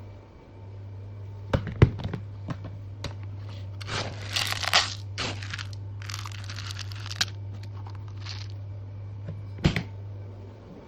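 Packaging being rustled and torn in several bursts, with a few sharp knocks before it and a thump near the end, over a steady low hum.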